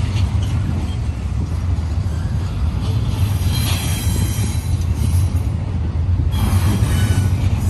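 Double-stack intermodal train cars rolling past, a steady low rumble of wheels on rail. Brief high-pitched wheel squeals come in about three and a half seconds in and again about six seconds in.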